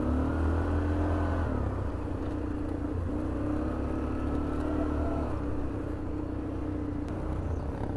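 Yamaha NMAX 155 scooter's single-cylinder engine running steadily under way, its pitch drifting gently up and down.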